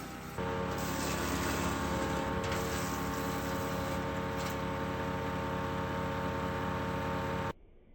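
Wood chipper's 15 HP 420cc OHV engine running steadily, getting louder about half a second in, then stopping abruptly near the end.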